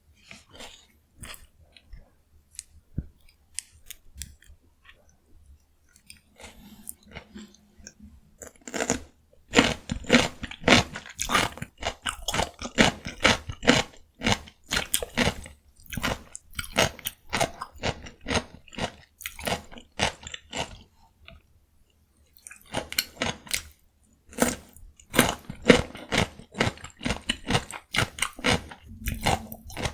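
Raw cucumber being chewed close to the microphone. The first several seconds hold soft, sparse chewing clicks. About ten seconds in, loud, rapid crisp crunching starts, pauses briefly about two-thirds of the way through, then resumes.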